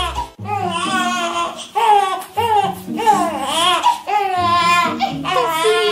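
A baby crying: a steady string of rising-and-falling wails, about two a second, with a wavering pitch on some of them.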